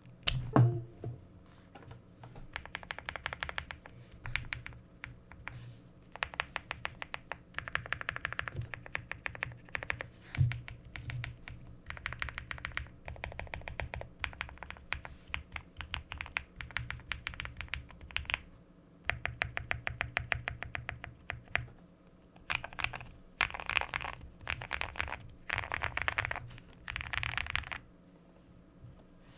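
A QK65 mechanical keyboard with a POM plate, full foam, linear frankenswitches on Boba LT stems and PBT keycaps, typed on in fast runs of keystrokes with short pauses between them. A louder low knock comes about half a second in and another near ten seconds.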